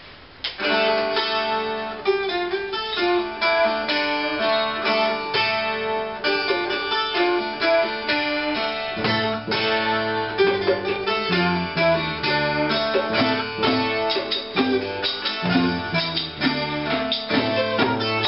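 A live folk group playing the instrumental opening of a Cypriot folk tune: a plucked long-necked lute leads with a fast run of quick notes, starting about half a second in. A bass guitar joins underneath about nine seconds in.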